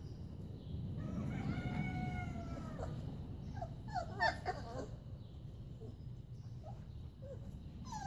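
Young Labradoodle puppies whining and yelping: one long, high, slightly falling whine about a second in, then a quick run of short squeaky yelps around four seconds in, and a few more near the end.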